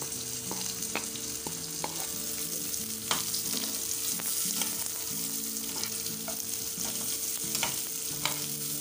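Sliced onions sizzling in hot oil in a non-stick frying pan as they are sautéed to soften. A metal slotted spoon stirs them, clicking and scraping against the pan now and then.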